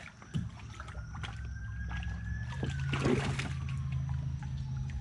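Water splashes and light knocks at a kayak as a landed tripletail is handled, with a splashy burst about three seconds in, over a steady low hum.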